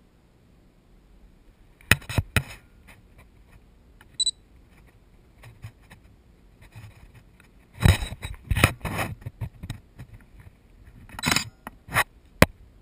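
Handling noise on the filming phone: fingers knocking and rubbing against it in clusters of sharp clicks, about two seconds in, again around eight to nine seconds, and around eleven to twelve seconds, the last a single loud click. A single short high chirp about four seconds in.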